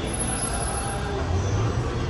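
Low, steady rumble of a vehicle engine running close by, its pitch rising slightly in the second half.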